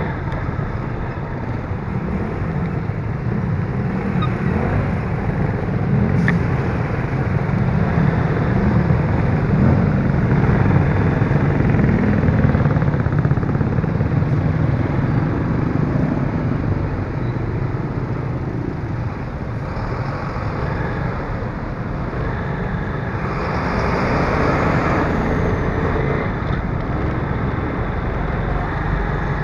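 Steady engine and road noise from riding a vehicle through town traffic, with other cars, tricycles and trucks passing close by. A louder stretch of passing-traffic noise swells up about three-quarters of the way through.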